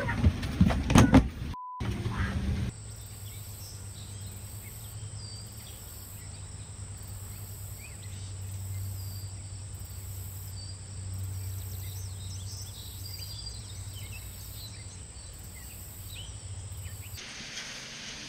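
Quiet outdoor background with faint scattered bird chirps over a low steady hum. Near the start there are a few sharp knocks and a brief beep.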